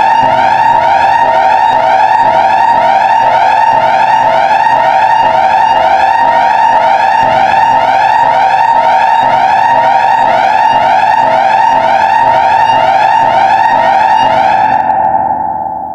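Angola emergency alert (EAS) alarm signal: a loud steady high tone held under repeating rising sweeps, about two a second. It begins to fade out near the end.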